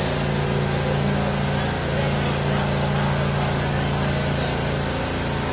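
A steady, unbroken low hum of a running machine, with even background noise over it.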